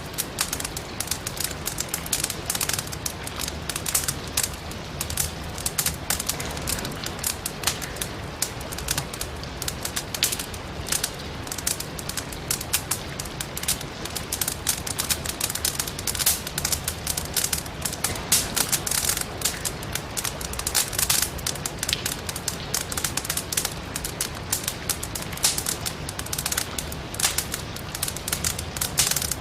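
Logs burning in a fireplace, crackling with many irregular small pops and snaps, over a steady hiss of rain.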